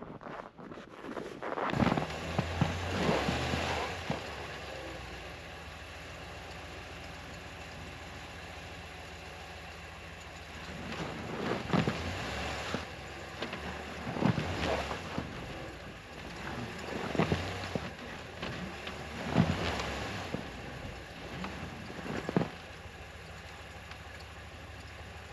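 Wind gusting against the microphone, swelling every few seconds over a steady low hum.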